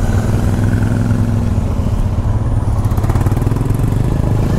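Royal Enfield Himalayan's 411 cc single-cylinder engine running with a steady low thump as the motorcycle pulls away from a stop, heard from the rider's handlebar camera.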